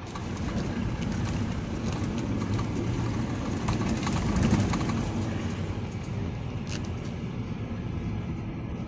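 A vehicle driving over a broken, potholed road: a steady rumble of engine and road noise with a few light knocks.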